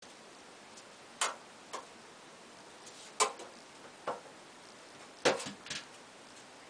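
A ferret moving about in an empty enamel bathtub and working at the metal drain plug: sharp knocks and clicks at uneven spacing, about a second apart, with a quick cluster of them near the end.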